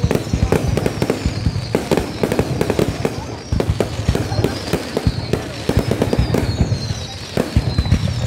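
Aerial fireworks display: shells bursting in quick, irregular succession, a dense run of bangs and crackles.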